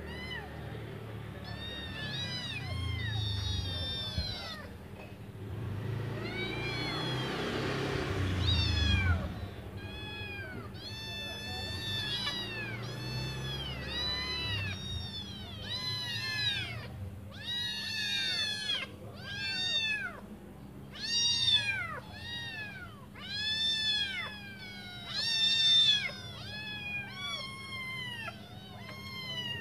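A litter of young kittens meowing over and over, high cries that rise and fall in pitch, often overlapping and coming thicker and louder in the second half: hungry kittens calling for their mother. A rushing noise swells under the cries about a quarter of the way in.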